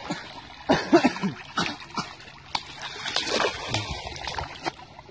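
Water splashing and sloshing as people wade and thrash through a shallow, muddy stream. The splashes come as a series of sharp slaps over a running-water hiss.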